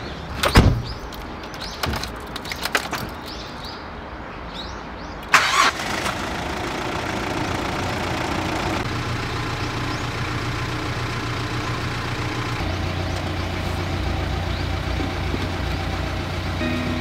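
A Hyundai Galloper SUV's door shuts with a thud and a few clicks follow. The engine then cranks and starts about five seconds in and settles into a steady idle, its pitch dropping slightly about two-thirds of the way through.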